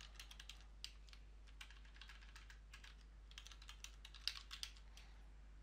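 Faint typing on a computer keyboard: irregular key clicks in short runs, with brief pauses between.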